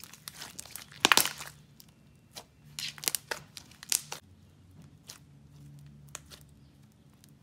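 Thick, creamy pink basic slime squeezed and kneaded by hand, giving irregular sticky clicks and crackles, loudest about a second in and again around three to four seconds.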